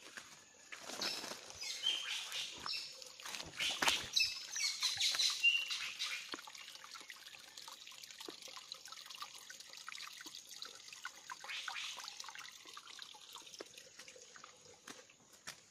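Footsteps crunching through dry leaf litter and brushing past undergrowth along a forest trail, heaviest in the first six seconds and then lighter, scattered rustles. A few short bird chirps come early on over a faint steady high whine.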